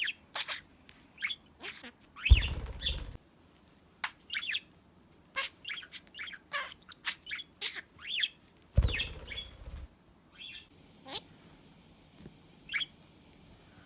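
Pet budgerigar chattering in short chirps and warbles. Two louder rustling bursts of about a second each come about two seconds in and again about nine seconds in.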